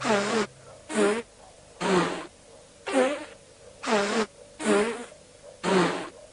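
Boohbah characters making short, breathy, warbling voice sounds, about one a second, seven in all.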